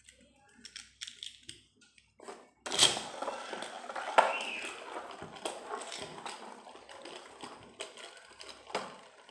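A few small plastic clicks, then about three seconds in a Beyblade Burst top (Infinite Achilles) is launched with a sharp hit onto the floor of a cardboard stadium. It spins on with a steady rattling scrape and scattered clicks, slowly fading.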